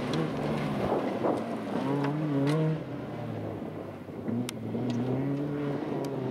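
Fiat Cinquecento rally car's engine heard onboard, its pitch rising and falling as the driver works the throttle, with a few sharp ticks.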